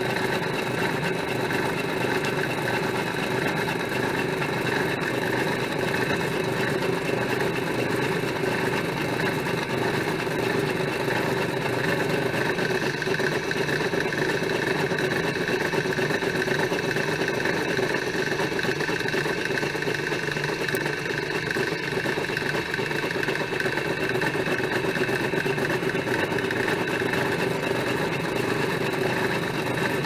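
Drill press motor and spindle running steadily, an even mechanical hum with several constant tones that hold their pitch throughout.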